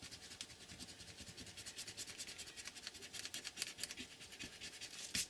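Pencil eraser rubbing over paper in quick back-and-forth strokes, clearing pencil lines from under an inked drawing, with a few harder strokes near the end.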